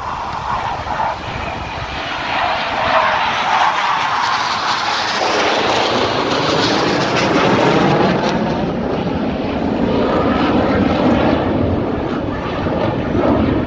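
Jet engines of a formation of Suryakiran aerobatic team aircraft passing overhead. The jet noise swells about two seconds in and stays loud, with a sweeping, phasing rush as the formation goes by.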